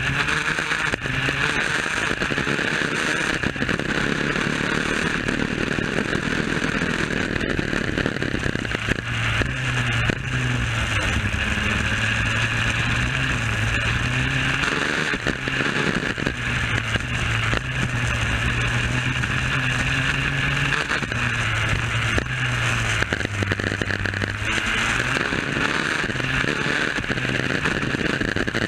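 Superkart's two-stroke engine running at speed, heard from on board, its note rising and falling repeatedly as the kart accelerates and slows for corners; the engine is being run in.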